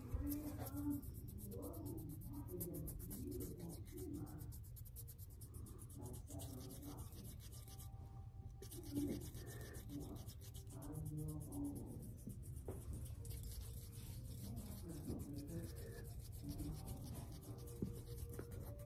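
Hands rubbing together and fingers moving close to the microphone, making a dense, crisp crackle of skin on skin.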